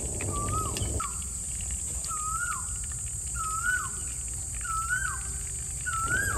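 A bird calling outdoors: one short whistled note that rises and then drops, repeated about every second and a bit. Under it runs a low rumble that drops away about a second in and comes back near the end.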